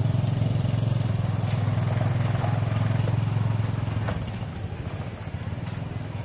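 A motorbike engine running as it passes close and rides off ahead. It is loudest for the first four seconds and then fades.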